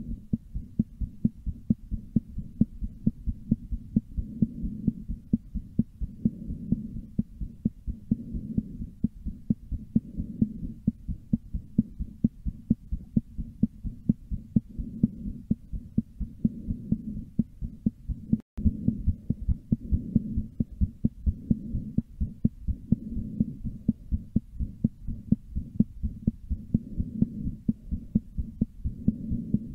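A person's heartbeat recorded close up: fast, regular, low thuds with no break in the rhythm except a momentary dropout about halfway through.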